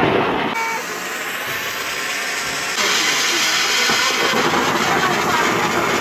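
Handheld fountain firework spraying sparks with a steady, loud hiss. The hiss changes abruptly twice, about half a second in and near 3 s.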